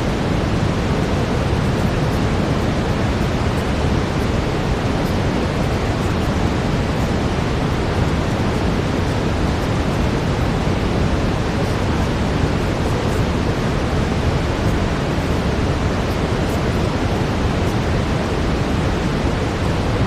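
Steady brown noise: an even, deep rushing hiss, heavier in the low end, with no changes.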